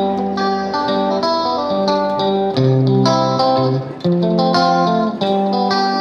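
Background music: a plucked guitar melody over sustained lower notes, at a steady pace.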